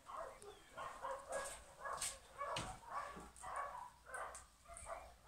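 A dog panting steadily, about two breaths a second, with a few faint crunches of debris underfoot.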